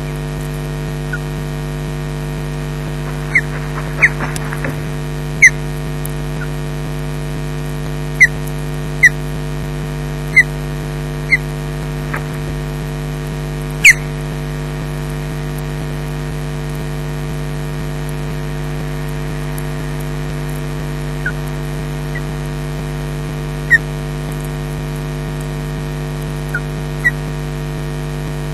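Steady electrical hum with several fixed tones, as on a nest webcam's audio line. About a dozen short, sharp high chirps or clicks stand out above it, most in the first half.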